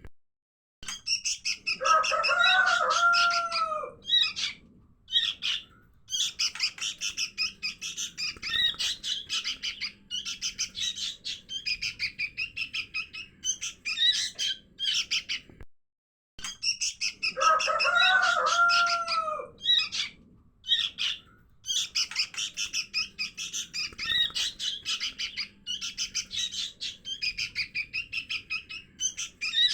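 Sooty-headed bulbul (kutilang) chicks calling, a lure recording for wild bulbuls: a fast, continuous stream of high chirps, with a lower arching call twice. The recording repeats as a loop about every sixteen seconds, with a brief silence where it restarts.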